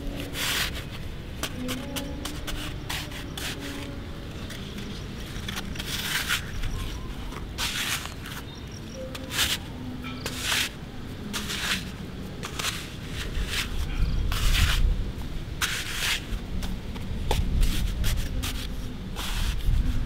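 Plastic toy shovels scraping into and scooping dry, clumpy soil, giving irregular crunchy scrapes of plastic on dirt.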